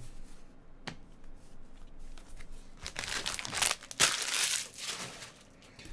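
Crinkling, crackly handling of plastic packaging, loudest a little past the middle, with a single sharp click about a second in.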